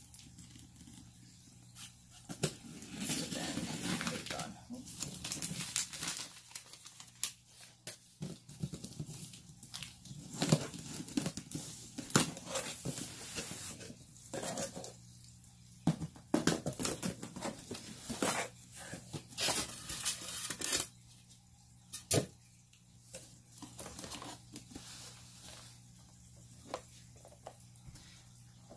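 Packaging of a shipped reptile box being torn open and crinkled by hand: irregular tearing and rustling with sharp snaps, busiest through the first twenty seconds or so and quieter handling near the end.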